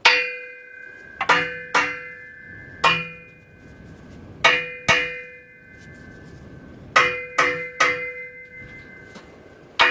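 A hammer striking rusted, seized rivet bolts on a Ford Mondeo exhaust flexi-pipe flange after they have been soaked in penetrating fluid, to loosen them. About ten sharp metal blows come in irregular groups, and each one leaves the metal ringing briefly.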